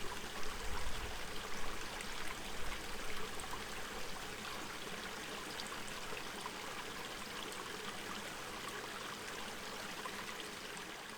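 Stream water flowing, a steady rush and trickle.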